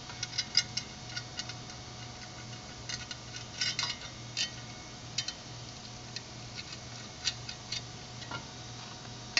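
Irregular light metallic clicks and taps as hands handle and seat an aluminium brake caliper cover and its clip hardware, over a faint steady hum.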